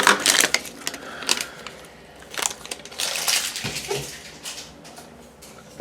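A small mystery-box package being pried and torn open by hand, with no knife: irregular crinkling, crackling and tearing with scattered sharp clicks. The sound is loudest at the start and again about three seconds in.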